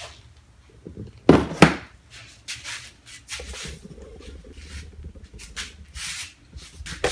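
Tools and a container being handled: two sharp knocks a little over a second in, then lighter clicks and rattles. A faint steady hum comes in about halfway through.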